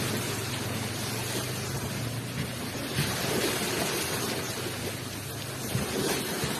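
Ocean surf rushing onto the shore: a steady wash of breaking water with a low rumble underneath, swelling briefly at the start, about three seconds in, and near the end.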